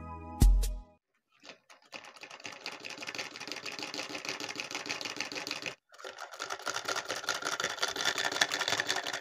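A homemade one-cylinder solenoid engine running, a fast, even mechanical clatter as its flywheel spins; it breaks off briefly about halfway. A short music sting ends in the first second.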